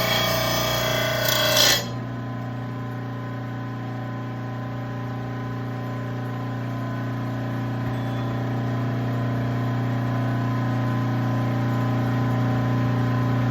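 Electric mower-blade sharpener grinding steel off a mower blade for just under two seconds, then cutting off suddenly as the blade comes off the wheel. The motor then runs on unloaded with a steady hum. It is a single stroke to even out a blade that was heavier on one side.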